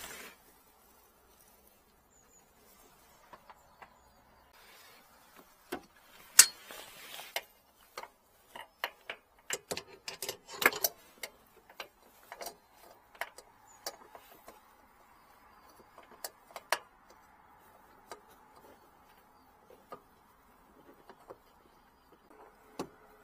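Irregular clicks, knocks and rustling of objects being handled and shifted as a gloved hand rummages among hoses, rope and metal parts in a cluttered compartment.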